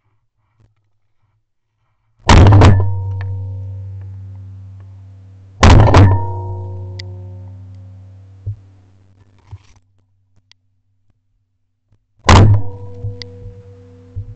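Three shotgun shots from a Beretta A300 Outlander semi-automatic 12-gauge, recorded by a camera mounted on the gun: two about three and a half seconds apart, the third about six seconds later. Each is very loud and rings on for a few seconds as it fades.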